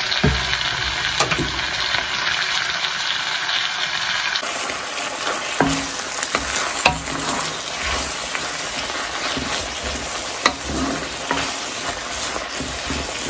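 Chicken and vegetable stir-fry sizzling in a wok while a wooden spoon stirs and scrapes it around the pan, with a few sharp knocks of the spoon against the wok.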